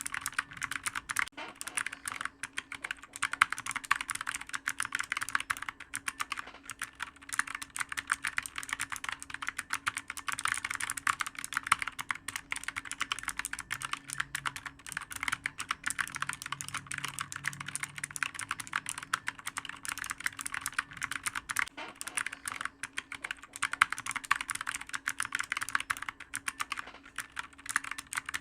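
Computer keyboard being typed on rapidly: a dense, unbroken run of clicky keystrokes that thins out only briefly here and there.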